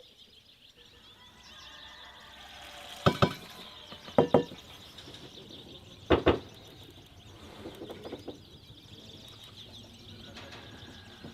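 Small birds chirping steadily in the background, broken by three loud, sharp double knocks in the middle, a second or two apart, with a few softer clicks after them.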